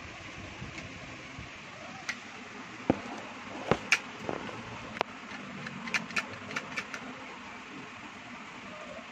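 Handling noise: scattered sharp clicks and knocks, with a quick run of several small clicks about six to seven seconds in, over a steady background hiss.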